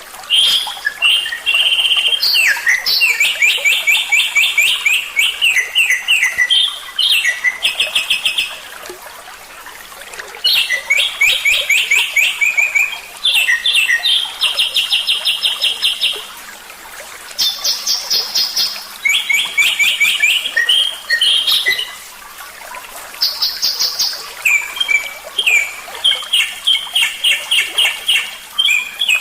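A songbird singing loud phrases of fast, rapidly repeated trilled notes, each phrase a few seconds long, with short pauses between phrases.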